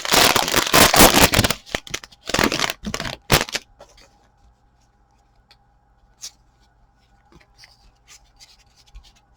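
Foil trading-card pack wrapper of Panini Donruss football cards being torn open and crinkled for the first second and a half, then a few more sharp rustles of the cards being handled. After about three and a half seconds only faint, scattered ticks of cards being shuffled remain.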